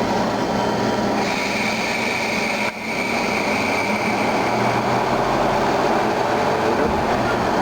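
Haas CNC lathe cutting an aluminum workpiece: a steady rush of machine noise. A high, steady whine from the cut rises out of it about a second in and fades a couple of seconds later, with a brief drop in level in between.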